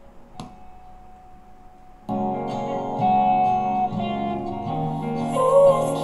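A sharp click about half a second in, then guitar music starts abruptly about two seconds in, playing through a small bookshelf speaker driven by a Mazda RX-8's Bose 5-channel car amplifier on the test bench: channel one is passing signal.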